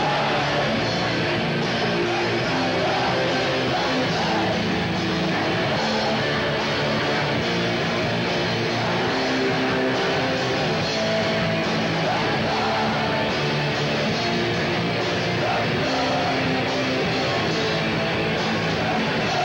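Live rock band playing loudly and without a break: electric guitar over drums.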